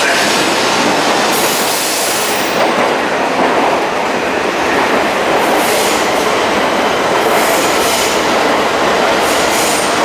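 E6 and E5 series shinkansen, coupled, moving slowly past a station platform: a steady loud running noise of wheels and motors, with a few clacks as the wheels cross rail joints about halfway through and near the end.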